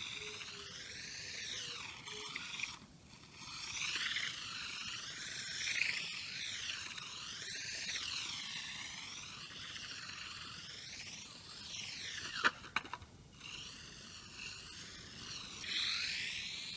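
Electric drive motor of a WLtoys K989 1/28-scale radio-controlled toy car whining as it drives and spins on asphalt, its pitch repeatedly rising and falling as the car speeds up, turns and slows. A few sharp clicks about twelve seconds in.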